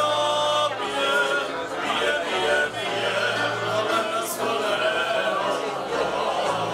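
Cimbalom folk band playing: violins, double bass and cimbalom, with the men singing together.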